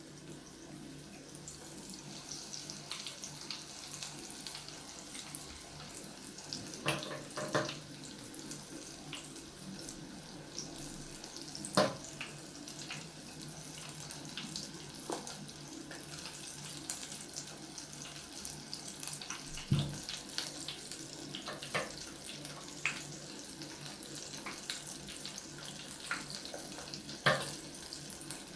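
Breaded chicken tenders deep-frying in a pot of hot oil: a steady hiss with fine crackling and spitting, and a few sharp knocks now and then.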